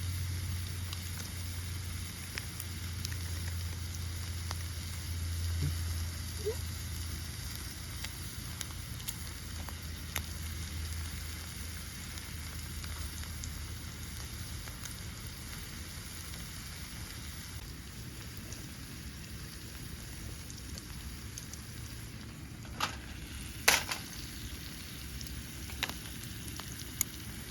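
Beef steak sizzling steadily over a wood fire, with small crackles. Near the end come a couple of sharp knocks, the loudest sounds here.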